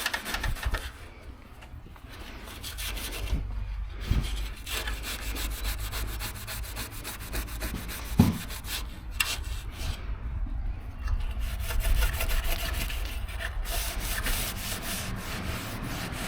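Hand sanding of a truck's bodywork: sandpaper rubbing back and forth in quick, even strokes, easing off for much of the middle and picking up again near the end. A single sharp knock about eight seconds in.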